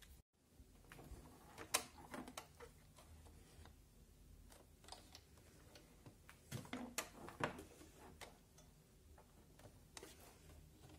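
Faint, irregular clicks and taps of fabric and clipped piping being set under the presser foot of a Brother FS40 sewing machine.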